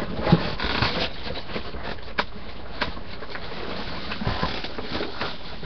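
Handling noise: rustling with scattered light clicks and knocks as objects are moved and set down, with a couple of louder knocks about two and three seconds in.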